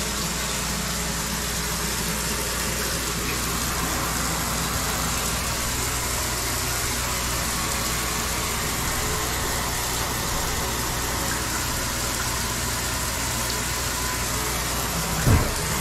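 Shower running: water spraying from the shower head onto the bathtub floor and running into the freshly unclogged drain, which takes it freely. A steady hiss, with a short thump near the end.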